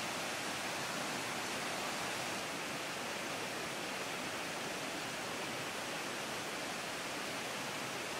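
Steady rushing of a river's flowing water, an even hiss with no change throughout.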